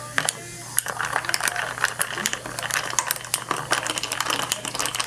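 A straw stirring kiwi-ade in a glass mason jar, with rapid irregular clinks and scrapes against the glass from about a second in, over the fizz of freshly poured sparkling soda.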